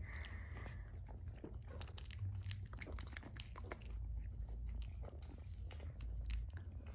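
Newborn Shiba Inu puppy mouthing and licking a person's hand, a run of small wet clicks and smacks, rooting at the hand as if to nurse.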